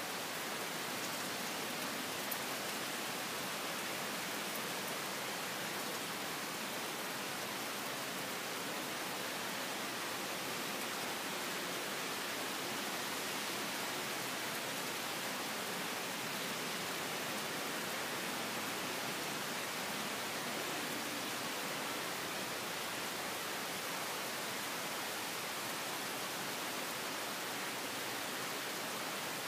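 Steady rain falling on coconut palms and grass: an even, unbroken hiss.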